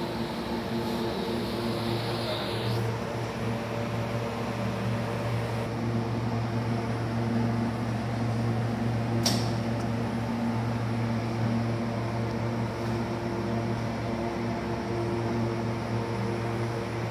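Steady fan noise and electrical hum from a Benning Tebevert 2500 G48E230 inverter and its load bank running under a load test. A single sharp click about nine seconds in comes as a load-bank button is pressed.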